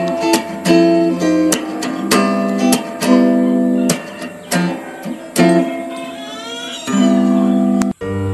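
Background music: acoustic guitar strumming chords, about one strum a second. The music drops out for an instant near the end.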